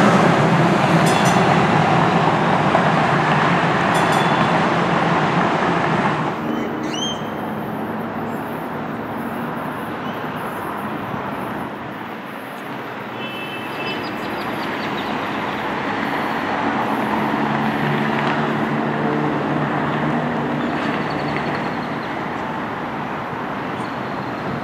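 A DART light rail train running loudly along the tracks, cut off abruptly about six seconds in. After that comes a quieter steady rumble with a faint low hum that grows slightly as another light rail train approaches round the curve.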